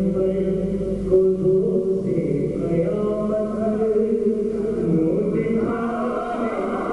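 A man chanting an Urdu manqabat, a devotional poem in praise of the Imams, in long held and bending melodic notes, amplified through a microphone.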